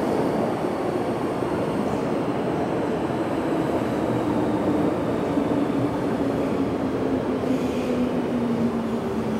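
MTR Kwun Tong line electric train running through an underground station without stopping, behind platform screen doors: a steady rumble and rush, with a motor hum that slowly falls in pitch.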